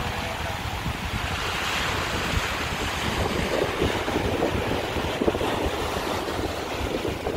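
Surf breaking and washing up over a sandy shore, with wind buffeting the microphone in low rumbling gusts.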